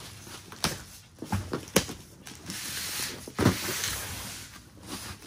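Cardboard box and paper packing being handled and rummaged through, with a plastic bag crinkling: a rustling that swells in the middle, broken by several sharp knocks.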